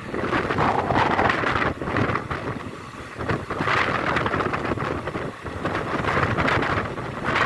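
Running noise of a moving express passenger train, heavily overlaid by wind buffeting the microphone, rising and falling in irregular gusts.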